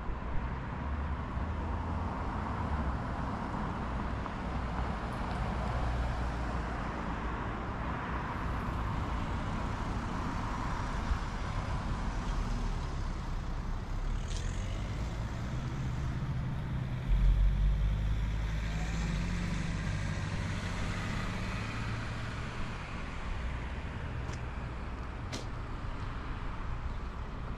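Road traffic on a street: passing vehicles whose tyre and engine noise swells and fades, over a steady low rumble that grows suddenly louder a little past the middle.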